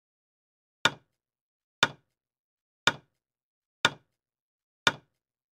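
Countdown timer sound effect: five short, sharp ticks about one second apart, counting down the seconds to answer.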